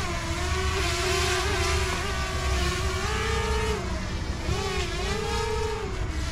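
Small DJI quadcopter drone hovering and climbing overhead: a steady propeller buzz whose pitch wavers up and down as the motors adjust, over a low rumble.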